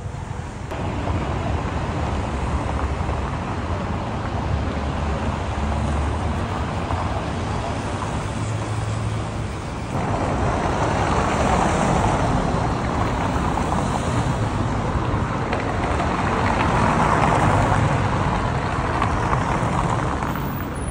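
City street noise: a steady wash of traffic, with wind buffeting the microphone. It grows a little louder about ten seconds in.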